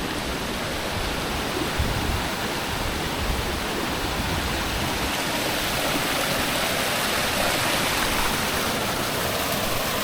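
Waterfall cascading over rocks in several places, a steady rush of water running at low flow in a dry spell. It grows a little louder after the midpoint.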